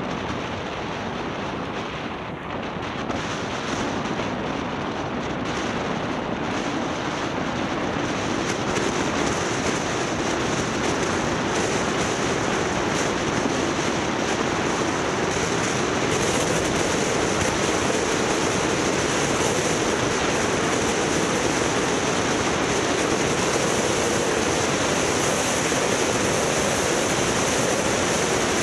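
Steady rushing road and wind noise from a moving vehicle, growing gradually louder, with a low hum that rises a little in pitch in the second half.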